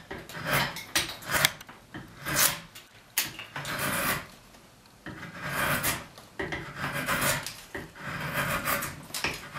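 Drawknife shaving a dry hard maple footrest blank held in a shaving horse: a series of rasping cuts, about one a second, with a brief lull about halfway through. The wood is dry and hard, so the cutting is hard going.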